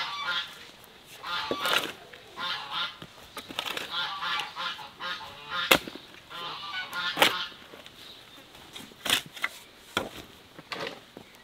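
Geese honking in a long run of repeated calls, which stop about two-thirds of the way through. Under them a steel shovel scrapes and strikes into loose soil several times, the loudest strike about halfway through.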